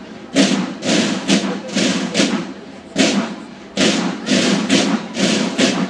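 Marching snare drums of a military-style drum and bugle band playing a cadence: loud, sharp strokes and short rolls in an uneven rhythm, a cluster of hits about every half second.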